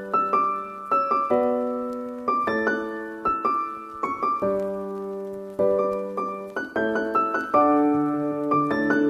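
Background music: a calm solo piano piece, with notes and chords struck about every half second to a second and left to ring and fade.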